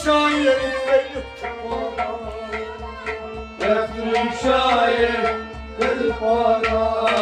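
Instrumental passage of Kashmiri Sufi music: harmonium and a bowed sarangi play the melody over a steady run of hand-drum strokes.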